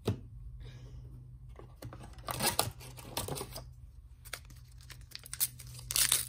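A trading-card pack's plastic wrapper is handled and then torn open, crinkling and tearing, loudest near the end. There is a sharp tap at the start and scattered rustling in the middle.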